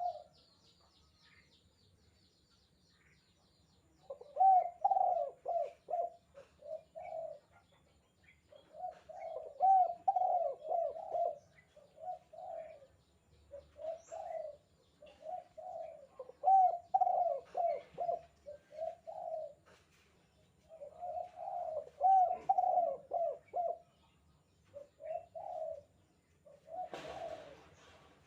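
Spotted dove (tekukur) cooing in repeated phrases of the 'kuk 2' call type, with short pauses between phrases. A brief noisy burst sounds near the end.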